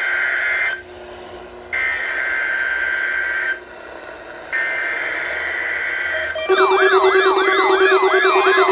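NOAA Weather Radio required weekly test. Three bursts of the SAME digital header, a harsh two-tone data screech lasting one to two seconds each, are separated by pauses of about a second. Then, about six and a half seconds in, a siren-like electronic alarm begins, sweeping upward in pitch about three times a second over a steady lower tone.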